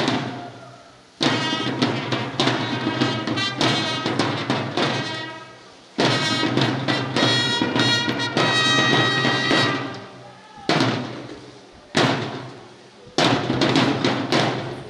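Marching band of a miners' parade playing a march with wind instruments and drums. The music fades and restarts abruptly several times.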